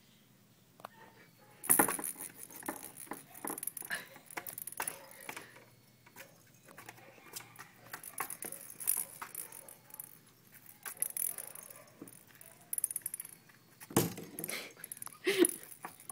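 Jingle-bell cat toy jangling and rattling in irregular bursts as kittens bat it about, starting about two seconds in, with scattered knocks and scuffles from their play.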